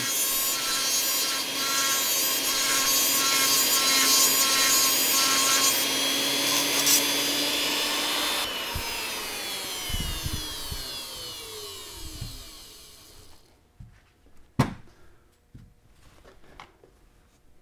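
Foredom flexible-shaft rotary tool with a small cutoff wheel grinding oil-relief notches into the thrust face of a steel Muncie transmission gear, a high-pitched grinding for about eight seconds. The motor is then switched off and spins down with a falling whine over several seconds, followed near the end by a sharp knock and a few light clicks.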